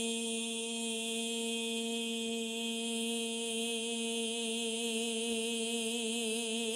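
A man's voice holding one long, steady note in a Punjabi naat recitation, sung or hummed without instruments. A slight waver creeps into the note near the end.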